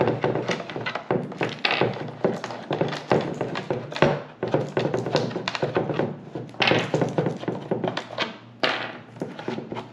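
Thumb screws being turned and the plastic shell of a GDome underwater phone housing being handled, opening the housing. Many quick clicks and knocks, with a louder knock about four seconds in.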